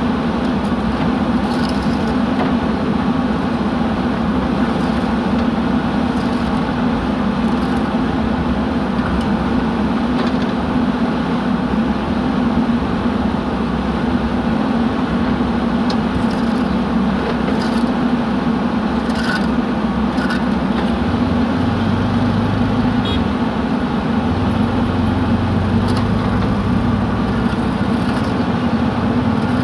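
JCB 3DX backhoe loader's diesel engine running steadily, with occasional light clicks and knocks. A deeper hum joins in about two-thirds of the way through.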